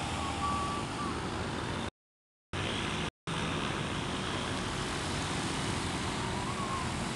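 Steady rushing noise of wind on the microphone over the distant running of light aircraft engines on a grass airfield. It breaks off into dead silence twice, briefly, about two and three seconds in.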